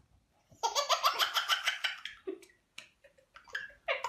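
A baby laughing: a quick run of giggles starting about half a second in, then short breathy laughs, with another burst of laughter near the end.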